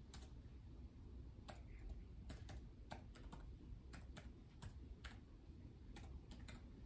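Faint computer keyboard typing: short key clicks coming unevenly, a few at a time.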